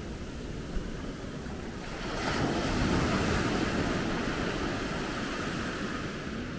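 Sea waves washing onto the beach, with wind on the microphone. A wave surges in about two seconds in and slowly fades.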